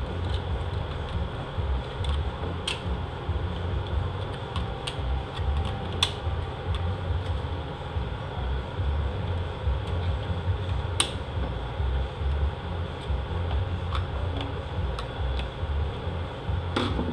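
Scattered sharp metallic clicks and taps, about a dozen, as a flat snap ring is worked into its groove in a 68RFE transmission clutch drum with a screwdriver, over a steady low background hum.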